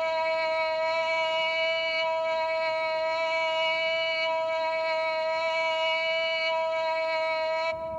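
A soccer commentator's drawn-out shouted "goal" call, one long vowel held on a single steady high pitch without a break, cutting off shortly before the end.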